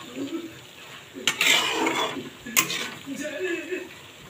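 A metal spatula scraping and clanking against a metal kadhai while stirring a dry potato, pea and cauliflower curry. There is a sharp clank about a second in, then a scrape, and another clank past the middle.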